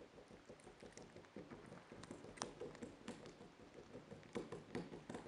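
Young porcupine gnawing and chewing a small pumpkin: a faint, quick, irregular run of small crunching clicks as its teeth bite into the rind.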